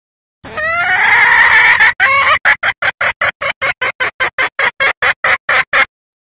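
Female red junglefowl calling: a drawn-out call that rises in pitch, starting about half a second in, then a run of quick clucks, about five a second. It is the hen's call that draws males.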